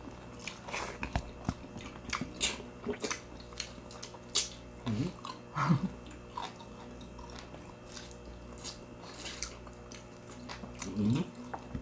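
Close-up biting and chewing of fried finger food, breaded crispy crablets and spicy barbecue chicken wings: irregular crunchy bites among steady chewing.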